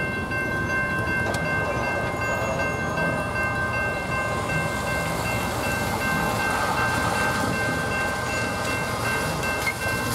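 Railroad crossing signal bell ringing steadily over a low train rumble and the hiss of rain-soaked road noise; the bell stops near the end. Car tyres swish over the wet pavement about two-thirds of the way through.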